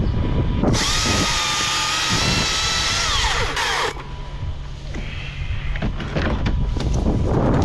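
Small electric power-tool motor whining at a steady high pitch for about three seconds, then winding down with a falling pitch and stopping, over a steady low rumble.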